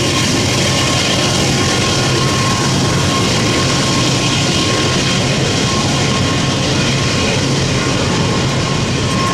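Freight train of garbage container cars rolling past below, a loud steady rumble and rush of wheels on rail with a thin steady whine over it; the cars sound empty.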